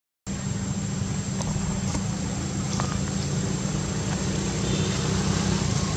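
A steady low mechanical hum, like an engine running, under a constant hiss, with a few faint ticks.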